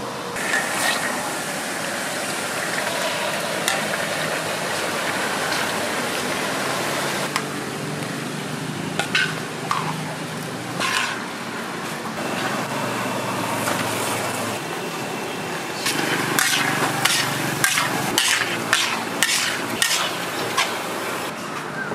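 Food sizzling in hot oil with a steady hiss, while metal utensils and pans clink and scrape. A quick run of sharp clinks comes in the last few seconds.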